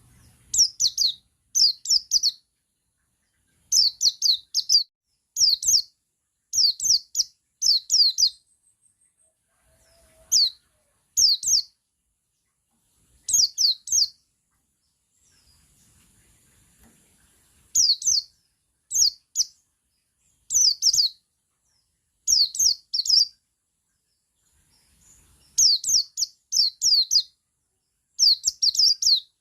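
Male pleci buxtoni white-eye singing its 'ngalas' song: short clusters of two to four quick, high, downward-slurred notes, repeated every second or two with brief pauses.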